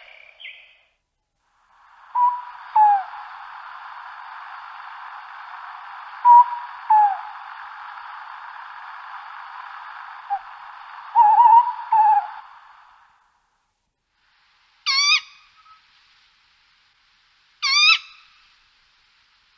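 Tawny owl calling. First comes a run of short, sharp calls over a steady background hiss. Then, after a break, three harsh calls follow about three seconds apart.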